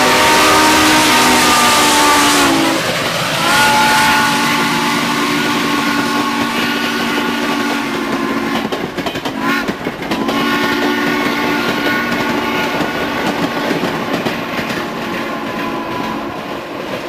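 Steam whistle of Reading & Northern 4-6-2 Pacific steam locomotive #425 sounding three long multi-tone blasts as the train passes close by; the first blast drops slightly in pitch as the engine goes past. Under the whistle runs the continuous noise of the train rolling by.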